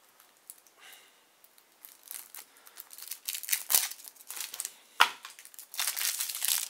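Plastic shrink-wrap on a KeyForge deck box crinkling and tearing as it is peeled off by hand, in a run of crackly bursts starting about two seconds in, with a sharp click about five seconds in.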